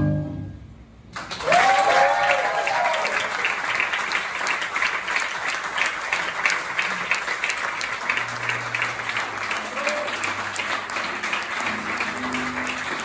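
The last note of tango music fades out. About a second in, an audience starts applauding and keeps up steady clapping, with a few cheers rising over it about two seconds in.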